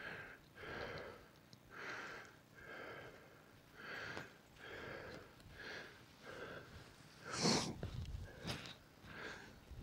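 Heavy, rhythmic breathing close to the microphone, about a breath every half-second to second, with one louder rustle about seven and a half seconds in.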